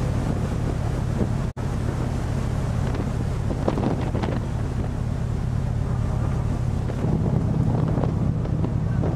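A stern trawler's engine running with a steady low hum under wind buffeting the microphone and the rush of heavy seas. The sound breaks off for an instant about a second and a half in.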